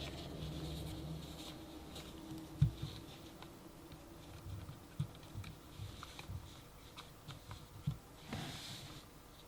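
Light handling clicks and taps of small plastic items, with one sharper click about two and a half seconds in and a brief rustle near the end. A faint low hum fades out in the first second and a half.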